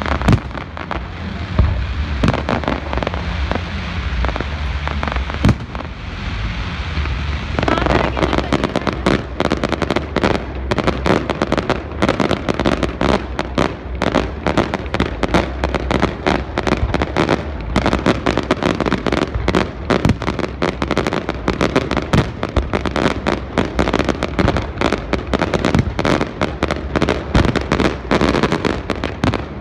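Fireworks display: aerial shells bursting in a continuous run of bangs. About eight seconds in it thickens into a dense, rapid barrage of cracks that goes on without a break.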